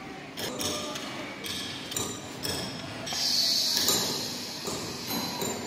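Automatic double-bed heat press in use: scattered knocks and clicks, then about three seconds in a loud hiss of compressed air lasting about a second and a half from the press's pneumatic system.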